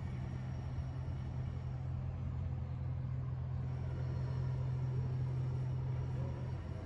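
Steady low mechanical hum, dipping briefly near the end.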